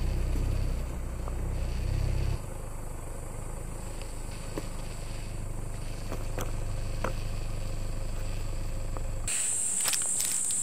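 Vehicle engine running with a low steady rumble that drops a little in level a couple of seconds in. Near the end it cuts to a loud, steady, high-pitched buzz of insects.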